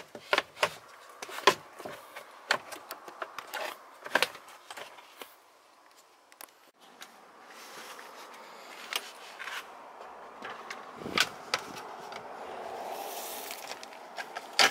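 Plastic interior trim covers being slid and clipped back into place under a car's dashboard. A quick run of sharp clicks and knocks fills the first few seconds, then a few scattered clicks follow later.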